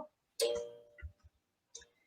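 A single plucked string chord or note, guitar-like, sounding about half a second in and ringing out quickly.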